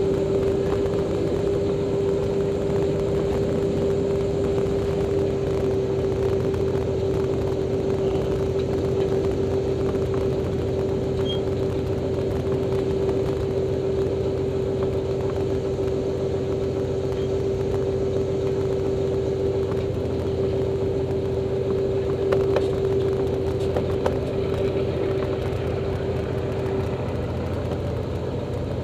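Pitts S-2B's six-cylinder Lycoming AEIO-540 and propeller running steadily at low taxi power, heard from inside the cockpit. A steady hum over the engine drone fades out near the end.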